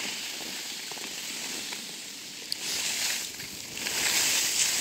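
Snow hissing and scraping under sliding edges on a ski slope: a steady hiss that swells into two louder scraping surges, about two and a half and four seconds in.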